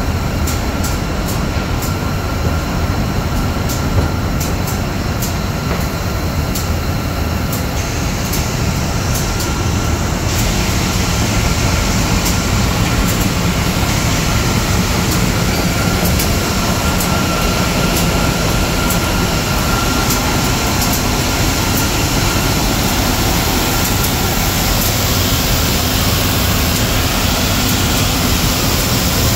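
DMC Unisand K wide belt sanding machine running with wooden boards feeding through on its conveyor: a loud, steady mechanical rumble with a faint, steady whine. A fast, faint ticking over the first ten seconds or so gives way to a fuller, steady hiss.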